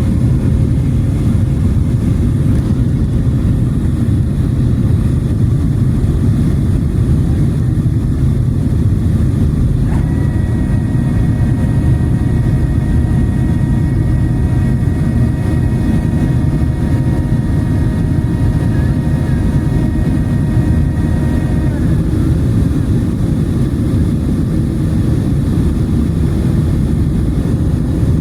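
Steady low roar of a passenger airliner's cabin, the engines and rushing air. About ten seconds in, a higher steady hum of several tones comes in suddenly and cuts off about twelve seconds later.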